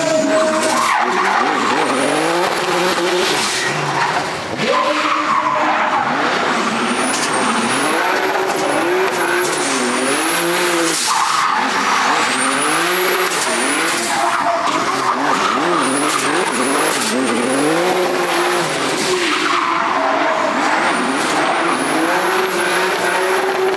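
Drift car's engine revving hard, rising and falling again and again, as the car slides sideways on spinning rear tyres. Loud tyre squeal and scrubbing run under it throughout.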